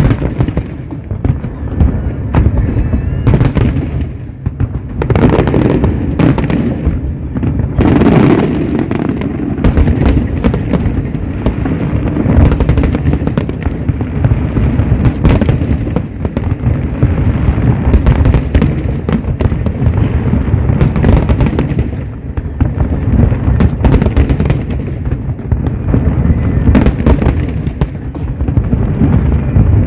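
Large aerial fireworks display: shells bursting in quick, overlapping succession, a continuous booming rumble with many sharp cracks on top.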